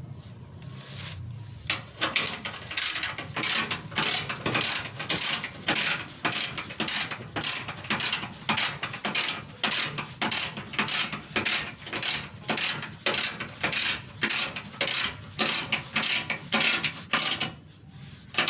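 Hand ratchet wrench clicking in quick back-and-forth strokes, about two a second, as bolts are tightened. The clicking starts about a second and a half in and stops just before the end.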